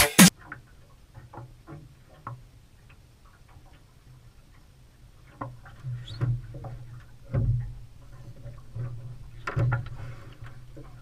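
Intro music cuts off, then faint scattered taps and small knocks of movement in a small metal fishing boat, with louder bumps about six, seven and a half, and ten seconds in.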